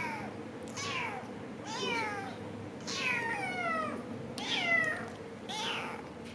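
Domestic cat meowing repeatedly, about six meows roughly a second apart, each falling in pitch, the one a little past halfway longer than the rest.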